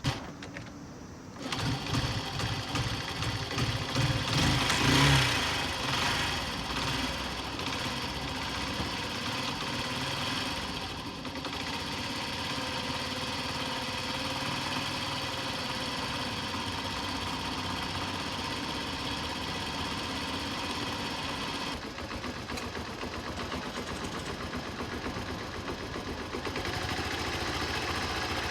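Honda Super Cub 90 (HA02) single-cylinder four-stroke engine starting about a second in. It is louder for a few seconds, then settles into a steady idle.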